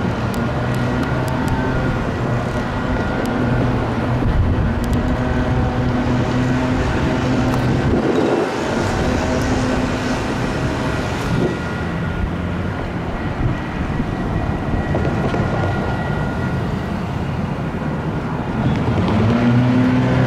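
Light rail train's electric drive humming, with railroad crossing bells ringing in the background. Near the end the hum rises in pitch as the train's motors pick up.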